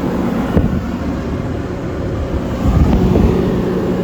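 Bobcat T870 tracked compact loader's diesel engine idling steadily, with wind buffeting the microphone in a brief low rumble about three seconds in.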